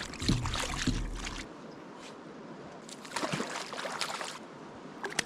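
Water sloshing and trickling with a few splashes. A low rumble runs underneath for the first second and a half, then stops.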